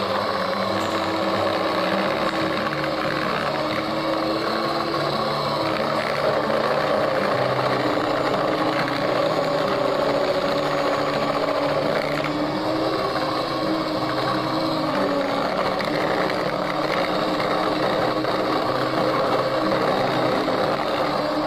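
Electric hand mixer running steadily at its highest speed, its beaters whirring through a thin egg-and-sugar batter in a plastic bowl.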